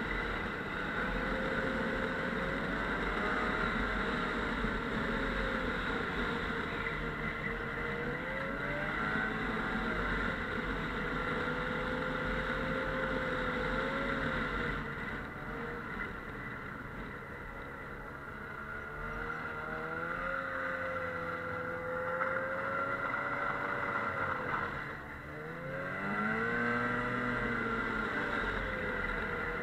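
Snowmobile engine running under way, its pitch rising and falling over and over with the throttle. A few seconds before the end it drops off briefly, then climbs again.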